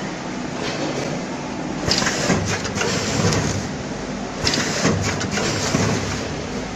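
Vertical form-fill-seal packing machine running steadily, with a burst of clattering and hissing twice, about two and a half seconds apart, as it works through its bagging cycle.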